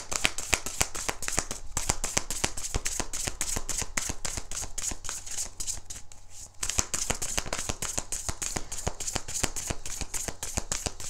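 A tarot deck being shuffled by hand: a fast, dense patter of cards clicking against each other, easing off for a second or so about halfway through before picking up again.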